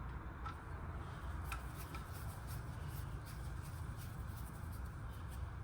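Faint rubbing and a few light clicks of small parts and wires being handled, over a steady low hum.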